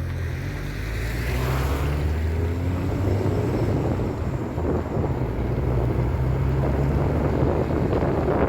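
Vehicle engine running steadily as a low hum, with wind noise over it.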